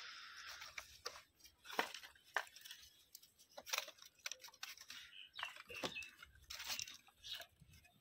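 Dry sticks and split firewood being laid and stacked by hand: irregular clacks, knocks and scrapes of wood on wood, with brief dry crackles.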